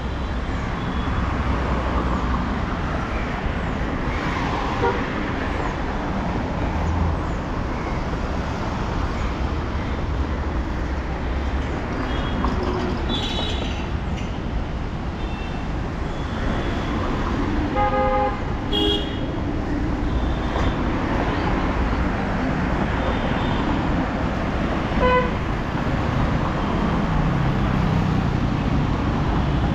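Steady road traffic with vehicle horns tooting briefly several times; the clearest toot comes a little past the middle.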